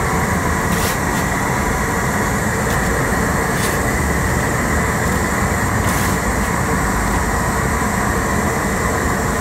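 A steel shovel scrapes as it scoops hot asphalt from a trailer hot box and tips it onto the patch, giving a few short scrapes over a steady mechanical drone.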